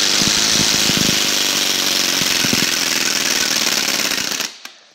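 A playing card taped to a bicycle flaps against the spokes of a fast-spinning wheel, the pedal turned by hand. It makes a loud, rapid, continuous clatter like a small motorcycle engine, and stops near the end.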